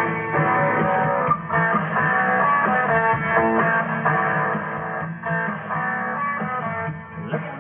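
Guitar-led music from an FM station, played through a Marantz stereo tuner and amplifier.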